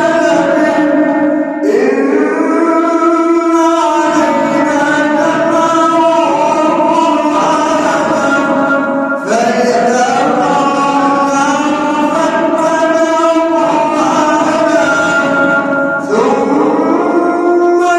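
Male voice chanting Quran recitation in the melodic Egyptian mujawwad style, holding long ornamented notes that slide between pitches. The phrases break with short breaths about one and a half, nine and sixteen seconds in.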